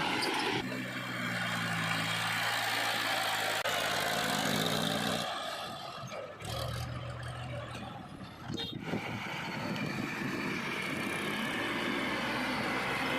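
Heavy diesel machinery engines running steadily, the engine note changing abruptly a few times.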